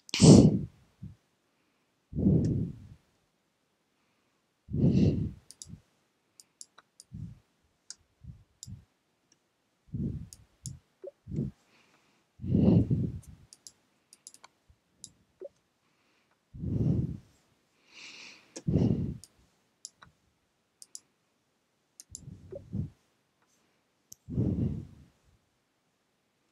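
A child's breaths puffing close to the microphone every two to four seconds, with faint computer-mouse clicks scattered between them as chess moves are made.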